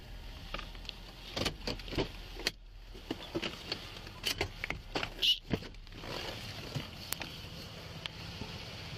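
Scattered clicks, knocks and rustling of a police officer moving about and climbing out of a patrol car, picked up by a body-worn camera. A short squeak comes about five seconds in.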